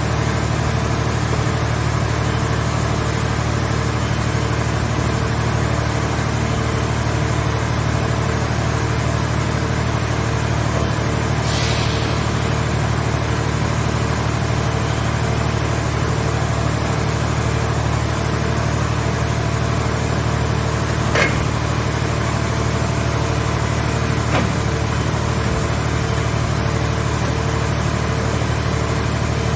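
Diesel engine of a mobile car-body baler running steadily. A short hiss comes partway through, and two sharp clicks come later.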